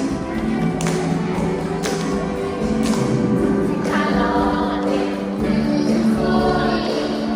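A choir singing a children's song with instrumental accompaniment, held notes changing over a beat that strikes about once a second.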